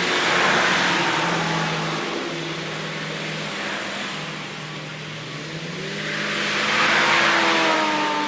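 Logging truck engine running under load, swelling in loudness about half a second in and again around seven seconds in, its pitch climbing as it revs up around six seconds in.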